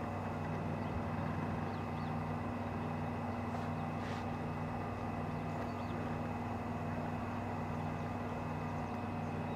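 A steady low hum over faint background noise, with a few faint short high chirps now and then.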